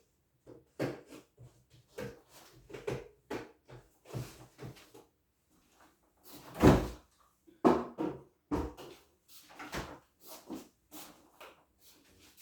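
Kitchen handling sounds: a string of irregular knocks and clunks as things are moved and set down, with one louder thump just past the middle.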